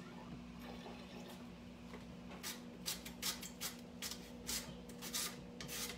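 A carrot pushed back and forth across the 6x6 julienne blade of an Epicure 4-in-1 mandoline: a quick run of short cutting scrapes, about three a second, starting a couple of seconds in. A steady low hum lies underneath.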